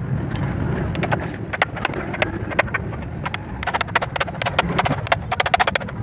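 Light hammer taps on thin sheet steel, folding the edge of a refrigerator panel over a steel angle iron. The taps come singly at first, then in quick runs of several a second in the last half.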